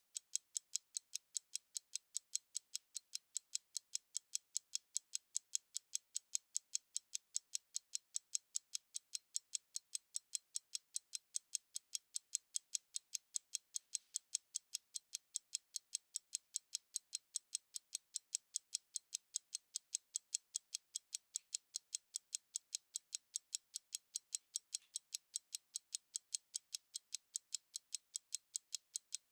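Analog stopwatch ticking: fast, even, crisp high clicks, several a second, at a steady level.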